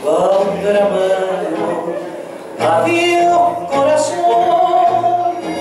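Recorded tango song: a singer's voice over the instrumental accompaniment, with held notes, and a new sung phrase beginning about halfway through.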